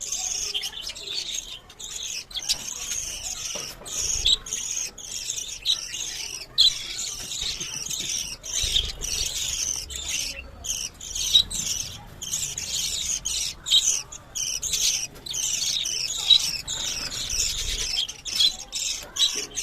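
Budgerigars chirping and chattering: a continuous run of rapid, high-pitched chirps with only brief pauses.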